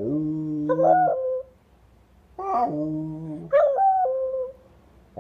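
Corgi howling twice while lying down. Each howl starts as a long, low held note and breaks upward into a higher note that wavers and falls away.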